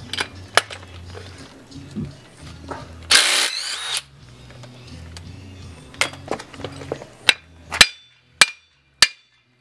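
Cordless DeWalt driver spinning a socket on the control arm's ball-joint castle nut in one short burst, followed by about six sharp metal clanks.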